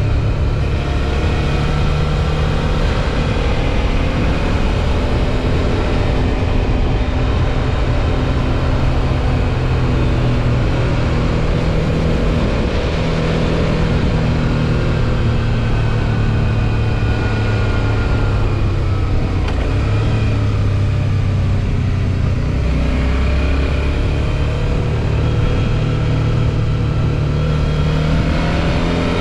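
Suzuki V-Strom 650 XT's 645 cc V-twin engine running under way, its pitch rising and falling gently with the throttle, over a steady rushing noise.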